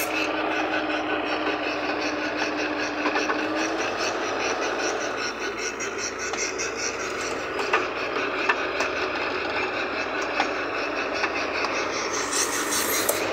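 Toyota truck engine running steadily under load as it works to get out of deep mud, with a few short sharp knocks near the middle.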